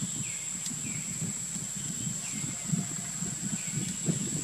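Outdoor ambience: short falling animal calls repeated every second or so, over a steady high-pitched whine and an irregular low rumble.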